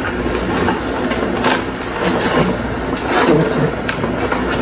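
Nama J2 slow masticating juicer running, its motor humming steadily while the auger grinds leafy greens, with irregular crackling and snapping as the leaves are crushed.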